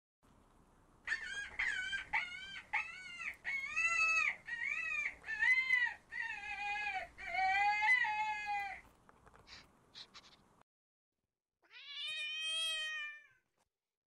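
Cat meowing: a run of about a dozen short, high-pitched mews, one after another, then a few faint clicks and one longer meow near the end.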